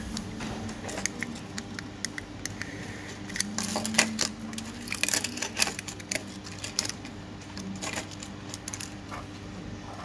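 Small plastic remote-control key fobs being handled and set down, their metal keyring snap hooks clinking, with many small clicks and taps that are busiest in the middle. A faint steady low hum runs underneath.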